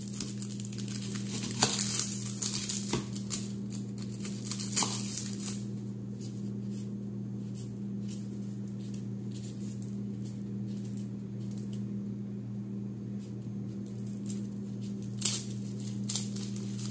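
Dry red-onion skins crinkling and a small kitchen knife scraping and tapping as onions are peeled by hand, in scattered small clicks and rustles that are busier about two seconds in and again near the end. A steady low hum runs underneath.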